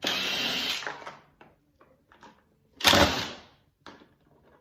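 Cordless drill-driver running in two short bursts, backing out tight screws: one burst at the start and another about three seconds in.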